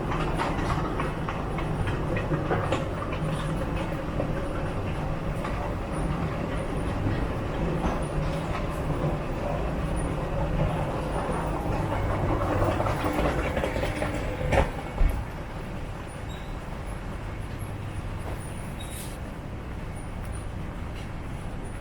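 Steady rumble and low hum of a train running, with two sharp knocks about fifteen seconds in, after which it runs a little quieter.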